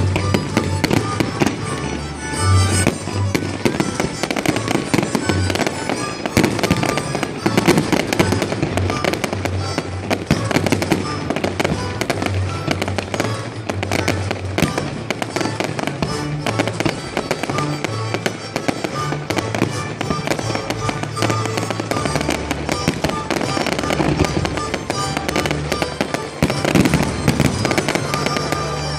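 Fireworks bursting and crackling in rapid succession, many sharp pops and bangs, over music with a moving bass line.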